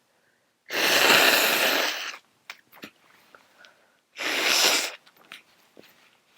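A person with a congested head cold sneezing twice, a long sneeze under a second in and a shorter one past the middle, with small sniffs and clicks between them.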